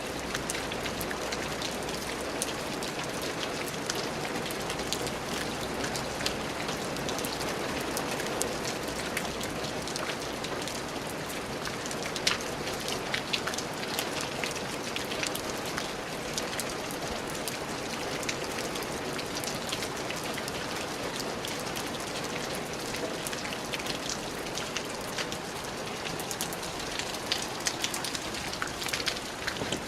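Steady rain falling, with many distinct drops pattering and ticking on a hard surface.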